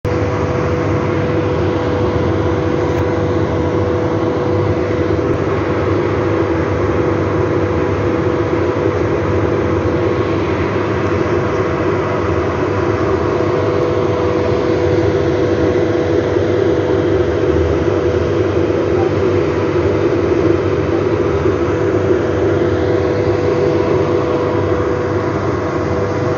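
Steady mechanical hum with a constant droning tone over a noisy rush, unchanging throughout.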